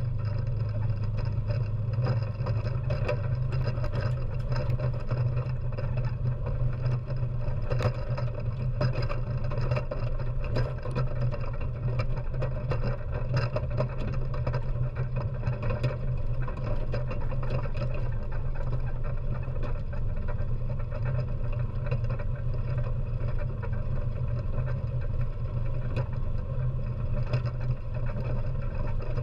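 ATV engine running steadily as the quad drives over gravel and dirt, with scattered clicks and rattles on top throughout.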